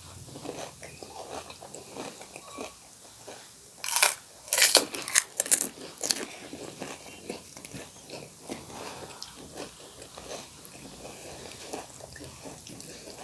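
People biting into and chewing crisp, hollow pani puri shells, with sharp crunches that are loudest about four to six seconds in.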